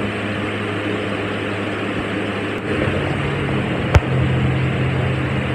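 Steady room noise: a hiss over a low mechanical hum that steps slightly higher about halfway through, with a single sharp click about four seconds in.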